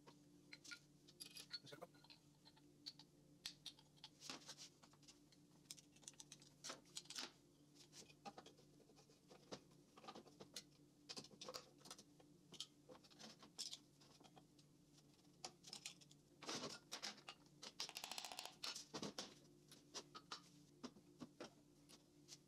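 Faint clicks, taps and light scraping of small metal engine parts being handled and fitted together by hand on a workbench, with a louder stretch of scraping and rattling about two-thirds of the way through. A faint steady hum runs underneath.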